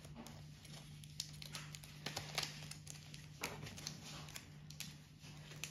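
Small scissors snipping at the foil wrapper of a trading-card booster pack, with the foil crinkling as it is handled; a few sharp snips and clicks stand out, the loudest a couple of seconds in.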